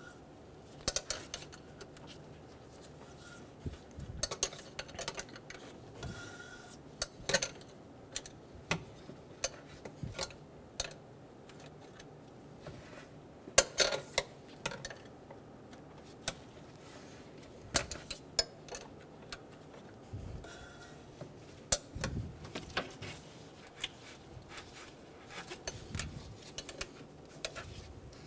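A wrench clicking and clinking against the steel nuts of a radiator fan clutch as they are snugged down, in scattered irregular taps with short quiet gaps between.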